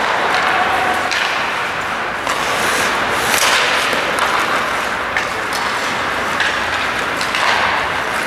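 Ice hockey play on a rink: scattered sharp clacks of sticks on the puck and each other and a brief hiss of skate blades scraping the ice about three seconds in, over a steady wash of arena noise.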